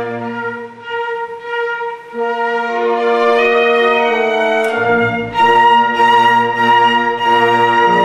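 Orchestral background music led by bowed strings playing sustained notes, growing fuller and louder about five seconds in.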